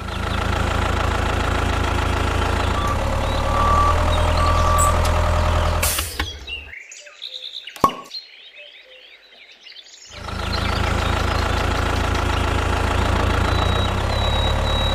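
Mini tractor engine running steadily, cut off abruptly about six and a half seconds in. Birds chirp in the quiet gap of a few seconds, with one sharp click, then the engine runs steadily again to the end.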